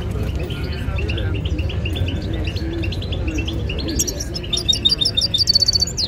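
European goldfinch singing: a run of quick twittering chirps that turns into fast, high trills near the end.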